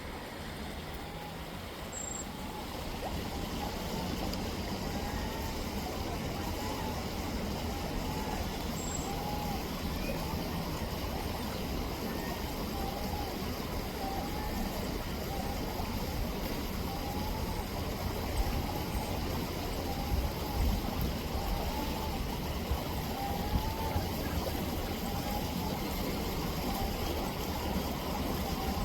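Gulls calling in a long run of short, rising-and-falling mewing notes about once a second, over the steady rush of rippling river water and a low rumble.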